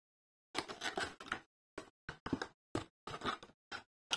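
Cardboard doll box being handled as the doll is slid out: a run of about ten short scraping and rustling sounds, with dead silence between them.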